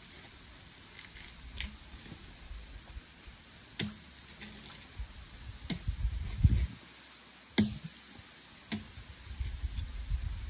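A few scattered sharp clicks and knocks over soft low thumps: objects being handled and set down.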